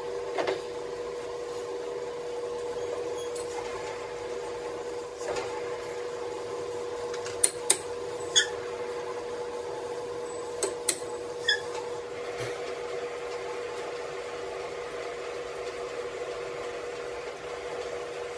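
A machine runs with a steady, even hum, and a few sharp metallic clicks and taps come in a cluster around the middle.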